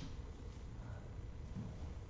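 Quiet room tone: a steady low hum with faint hiss, with no distinct sound.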